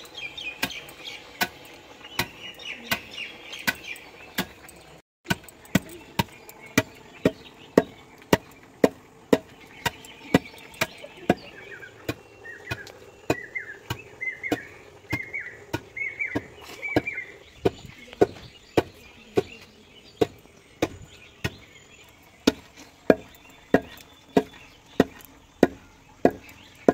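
Long wooden pestle pounding raw rice grains in a deep wooden mortar (chham and gain), steady dull thuds at about two strikes a second, breaking the rice down into rice flour.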